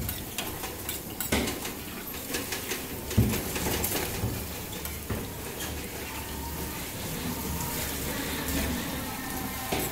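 Kebab patties sizzling in shallow oil on a large flat griddle, with metal spatulas scraping and clinking against the griddle as they turn the patties. The sizzle is steady, and the clinks come at scattered moments.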